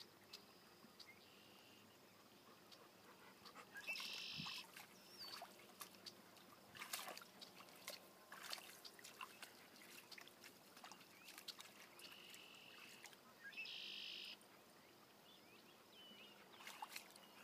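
Faint splashing of a Bernese mountain dog wading and nosing about in a shallow stream, with scattered small splashes and trickles. Two brief hissing bursts stand out, about four seconds in and again near fourteen seconds.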